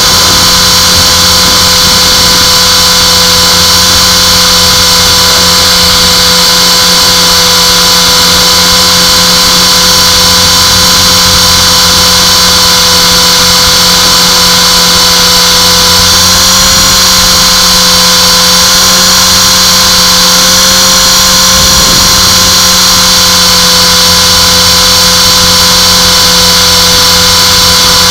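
Align T-Rex 450 electric RC helicopter in flight: a steady high whine from its motor and rotors, rising slightly in pitch for a few seconds about two-thirds of the way through.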